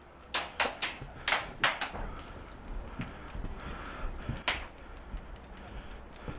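Airsoft rifle firing single shots: six sharp cracks in quick, uneven succession in the first two seconds, then one more about four and a half seconds in.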